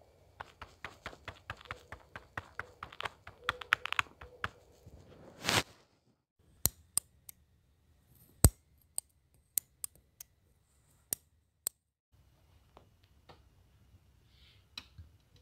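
A stiff plastic-bristled scrub brush being rubbed, a dense crunchy crackle of clicks lasting about five seconds and growing louder at the end. Then about ten sharp single clicks from a metal snap fastener on a strap being pressed and pulled. Then, faintly, thick sauce pouring from a jar into a metal cup.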